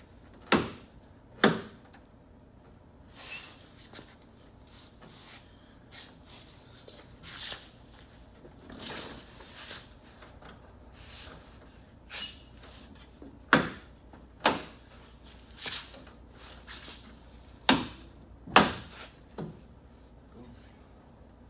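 Sharp knocks in three pairs, each pair about a second apart, with quieter scraping and handling between: hand-tool work fitting clips and fasteners to a car's front bumper.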